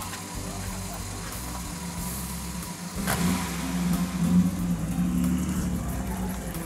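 Vintage car engine running, getting louder about three seconds in as it revs up or draws closer.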